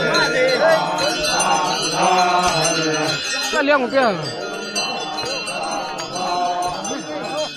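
Crowd of festival dancers chanting and calling out together, many voices overlapping and gliding up and down, with one long falling cry about four seconds in, over a steady metallic bell-like jingling.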